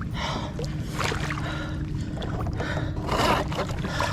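Shallow saltwater splashing and sloshing in about four short bursts, over a steady low rush of water and wind.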